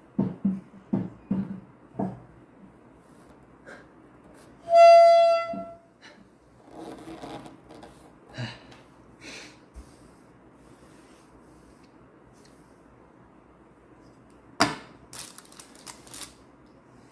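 Indoor handling noises: a quick series of knocks or footsteps, then a single steady high tone held for about a second, and near the end a sharp knock followed by a short clatter as things are moved about at the table.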